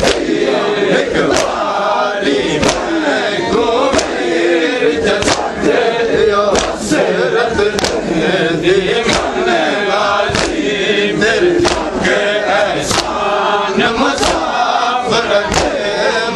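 Large crowd of men chanting a noha together in mourning, with a sharp slap of hands beating chests in unison about every second and a quarter: Shia matam.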